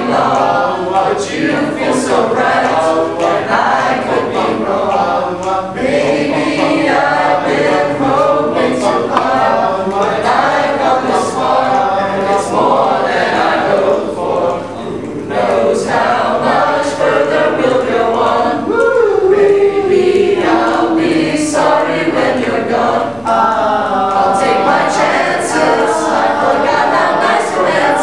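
Small mixed choir of men's and women's voices singing a cappella, with a short break about halfway through.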